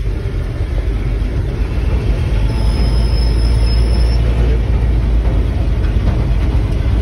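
1960 Dodge D100 pickup driving slowly over a dirt track, heard from inside the cab as a loud, steady low rumble of engine and running gear. A thin high squeal rises over it about two and a half seconds in and fades out under two seconds later.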